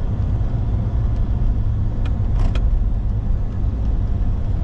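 Road noise of a car being driven: a steady low rumble from the engine and tyres, with a few light clicks about two seconds in.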